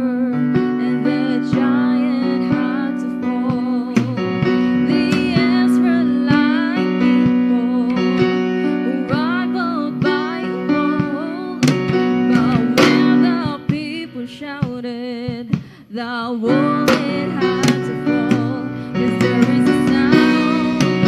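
Live worship song: singers with acoustic guitar and keyboard accompaniment. The music thins out briefly about fifteen seconds in, then comes back in full.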